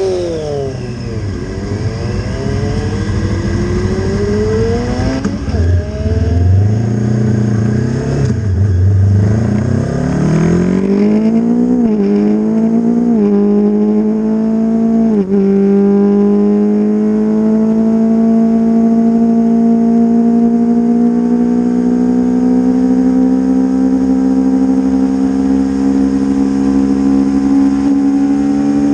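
Honda CB500 race bike's parallel-twin engine heard from on board at racing speed. The engine note falls as the bike slows, pulls low for a few seconds, then climbs through three quick upshifts about 11, 13 and 15 seconds in, and ends in one long, steadily rising pull in a high gear.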